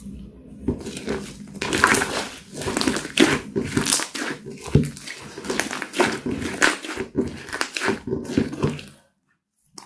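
Hands squeezing and kneading a lump of thick slime: dense, irregular wet squelches and crackling pops, which cut off suddenly near the end.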